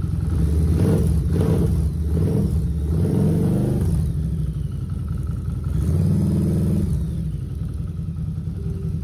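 Harley-Davidson V-Rod Muscle's liquid-cooled Revolution V-twin running just after an oil change, with the throttle blipped several times so the revs swell and fall back. The bike is being run up toward operating temperature so the fresh oil can settle before the level is checked.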